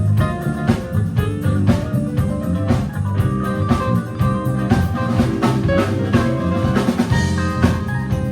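Live band playing an instrumental jazz-funk tune: a drum kit with rimshots and bass drum keeps a steady beat under bass and a melody of held notes, with guitar in the mix.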